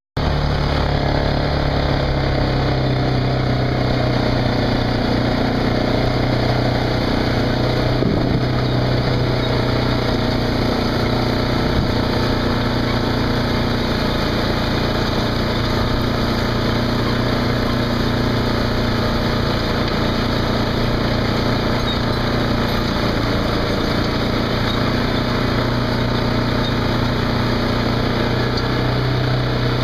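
Case IH Quadtrac tractor's diesel engine running steadily under its turbocharger, with the turbo's whistle over the engine drone.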